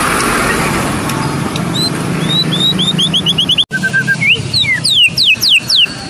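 White-rumped shama (Medan murai batu) singing: quick runs of sharp, sweeping whistled notes. Through the first half a vehicle engine runs in the background, and the audio cuts out for an instant just past halfway.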